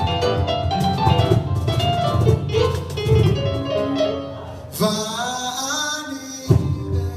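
Live acoustic band music: strummed acoustic guitar, hand drums on a cajon and djembe, and keyboard, with a man singing. About five seconds in the instruments drop back under a held, bending sung line, cut off by a sharp drum hit.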